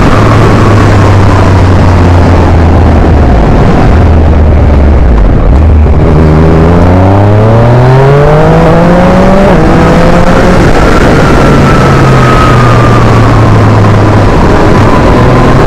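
Yamaha MT-09's inline three-cylinder engine with Akrapovic exhaust, heard from the moving bike. The revs drop between about 3 and 5 seconds in, then climb in a steady rising pitch under acceleration from about 6 seconds, change near 10 seconds, and settle to a steady cruise, all under a constant loud rush of noise.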